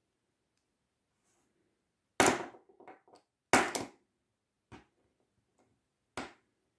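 Plastic Bakugan toy clacking against a tabletop as it is put down and snaps open: two sharp knocks about two and three and a half seconds in, then a few lighter clicks of its plastic parts being handled.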